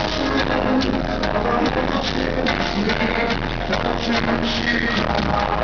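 Live rock band playing with electric guitar and steady drum hits, loud and continuous, recorded from the crowd.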